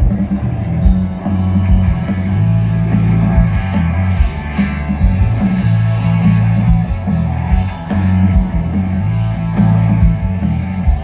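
Rock band playing live through a large outdoor PA, heard from within the crowd: electric guitar, heavy booming bass and a steady drum beat.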